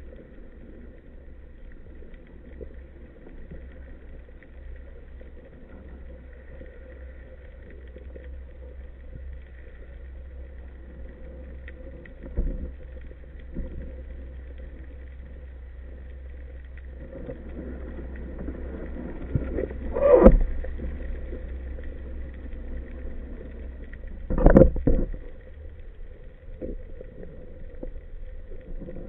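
Underwater ambience picked up through a camera housing during a freedive with a speargun: a steady low rumble with a faint hum, broken by a soft knock and then two louder knocks about four seconds apart in the second half.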